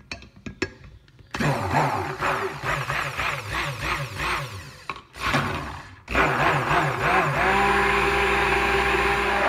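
Stick blender set in the pot with a few light knocks, then switched on and run in bursts, its motor pitch wavering as it churns lye solution into melted coconut oil for hot process soap. It cuts out briefly twice, then runs steadily near the end.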